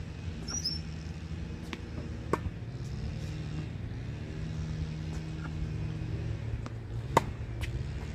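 Tennis balls struck with a racket on an outdoor court: two sharp strikes about five seconds apart, each with a fainter pop near it. A steady low engine-like hum runs underneath, and a bird chirps once near the start.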